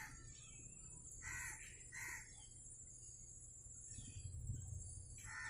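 Faint bird calls: short, repeated calls, two of them about one and two seconds in and another near the end.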